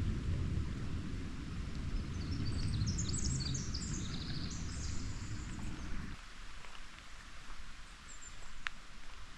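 Forest ambience: a steady rush of creek water, with a bird singing a quick run of high chirps for a few seconds in the middle. A low rumble underneath cuts off abruptly about six seconds in.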